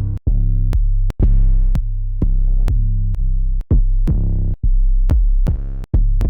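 Trap drum kit samples playing: deep, sustained 808 bass notes, each started by a sharp click, following one another about every half second with brief gaps between some.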